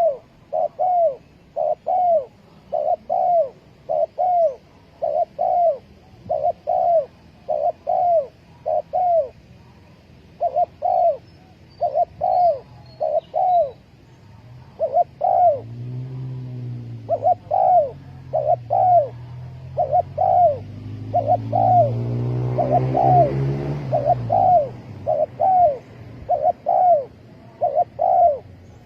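Spotted dove cooing over and over, its short hollow notes coming in quick groups, phrase after phrase. Through the middle a low droning hum swells up and fades away again under the calls.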